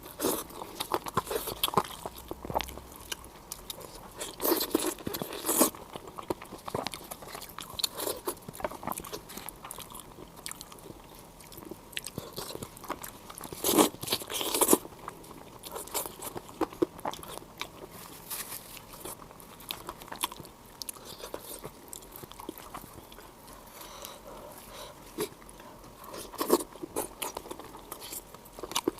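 A person eating close to the microphone: irregular biting, crunching and chewing, with louder bursts of crunching about four to six seconds in and again around fourteen seconds.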